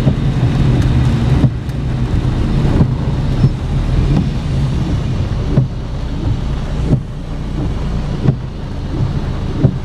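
Inside a car driving in heavy rain: steady engine and wet-road tyre noise with rain on the windshield, and the windshield wipers sweeping about every second and a half.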